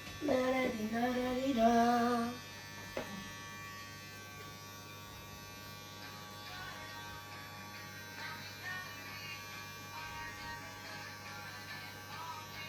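Electric hair clippers buzzing steadily through a haircut. A voice sings a short wordless tune over them for the first two seconds or so.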